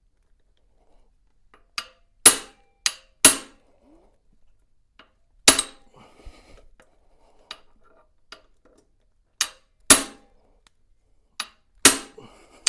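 A steel hammer striking the handle of a ratchet wrench, metal on metal with a ringing clink, to shock loose a tight bolt on the cylinder head. There are about nine blows in irregular groups, usually a light tap followed by a hard strike, with pauses between the groups.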